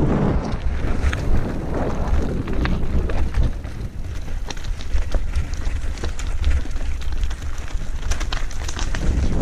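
Wind buffeting the microphone of a handlebar-mounted camera as a mountain bike rolls over a rough trail. The bike rattles and knocks with many sharp clicks over the bumps.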